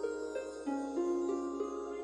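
Cheerful intro music: a light melody of short pitched notes, about three a second.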